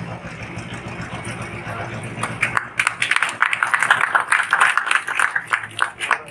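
A group of people clapping, starting about two and a half seconds in and stopping at once near the end, over a low murmur of voices.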